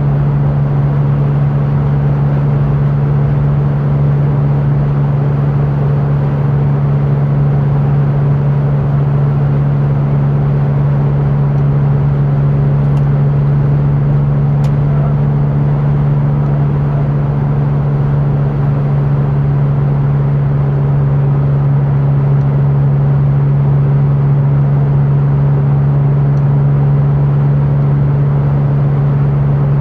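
Porsche 911 (996) Turbo's twin-turbocharged flat-six holding a steady engine speed while cruising: a constant low drone that neither rises nor falls, over road noise.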